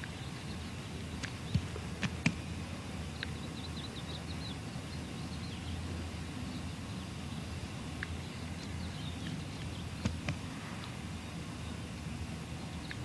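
Outdoor ambience: a steady low rumble with small bird chirps. A few sharp knocks come about one and a half to two seconds in and again about ten seconds in.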